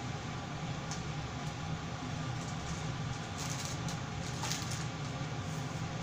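Kitchen range-hood extractor fan running with a steady low whir, with a few faint ticks and crackles a little past halfway.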